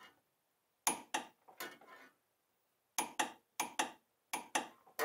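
Ratchet clicks of a torque wrench swung back and forth in short, cramped strokes, tightening an upper control arm bolt. They come in several short runs of a few clicks each.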